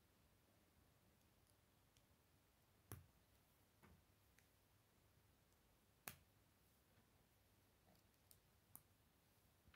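Faint, sparse clicks of plastic K'nex connectors being snapped together by hand: two sharper snaps about three and six seconds in, and a few softer clicks near the end.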